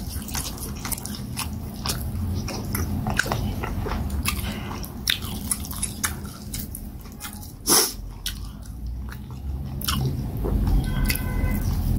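Close-up chewing and wet mouth sounds of a person eating fufu dipped in peanut soup by hand. Many small clicks and smacks, with one louder one about two-thirds of the way in.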